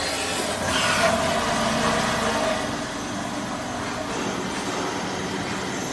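A small Shanghai Tongshi CNC automatic lathe running under power with coolant spraying on the cutting area, giving a steady mechanical hum and hiss. It is a little louder for the first couple of seconds, then settles to an even running noise.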